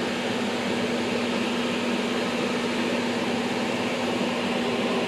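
All-metal solder fume extractor fan running steadily with its filter installed: an even rush of air over a constant low hum.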